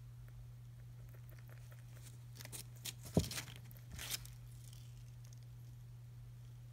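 Ducklings shifting on newspaper bedding: a short spell of paper rustling and crinkling, with a few soft taps, about two to four seconds in.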